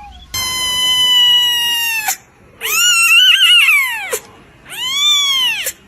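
An animal wailing in three long, loud, high-pitched calls. The first is held almost level and sags at the end, the second wavers up and down in pitch, and the third rises and then falls.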